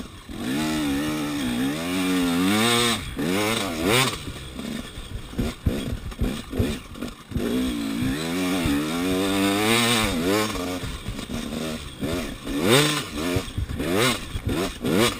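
KTM 300 EXC's single-cylinder two-stroke engine, ridden hard through sand: the revs climb and fall again and again as the throttle is opened and shut, with brief drops and a few short knocks along the way.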